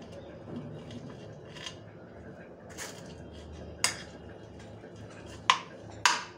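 Metal spoon scraping and clinking against a ceramic bowl while stirring a mashed potato and shredded chicken filling, with a few sharp clinks, the loudest about four, five and a half and six seconds in.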